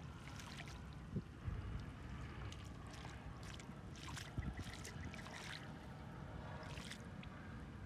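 Hands digging and scooping through wet mud and shallow muddy water, giving irregular short wet splashes and slaps over a steady low rumble.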